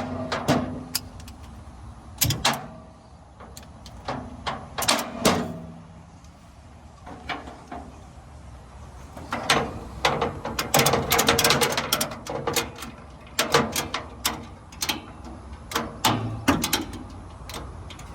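Ratchet tie-down strap being cranked tight to secure a truck on a trailer: bursts of metallic clicking and clanking, densest about ten seconds in.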